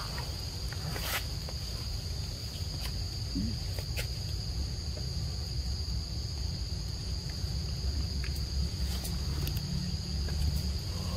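Insects droning steadily at a high pitch over a low steady rumble, with a few sharp clicks.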